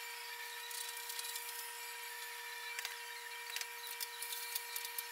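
Faint scattered clicks and light scraping of steel nuts and heavy washers being fitted onto bolts by hand, over a steady faint hum.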